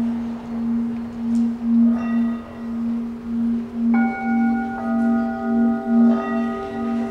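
Live metal percussion ringing: a steady low tone that swells and fades about every two-thirds of a second, with struck bell-like notes joining about two and four seconds in and ringing on.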